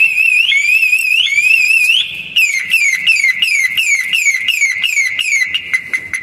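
Maruti Suzuki Ertiga's anti-theft alarm siren sounding as jump-start cables restore power to its dead battery. It cycles through tones: a warbling tone that sweeps up again and again, then quick falling chirps about three a second that turn into short pips near the end.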